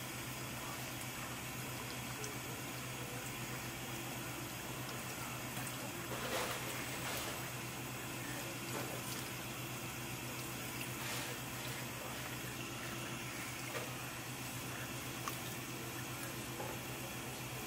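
Water running steadily from a hose as a fish is rinsed on a cutting board, with a few soft knocks about six, seven and eleven seconds in. A steady low hum lies underneath.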